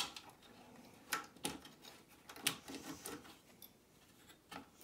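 A CR2032 coin cell being fitted into a plastic battery holder on a circuit board: a handful of small, sharp clicks spread over a few seconds as it is pressed and seated.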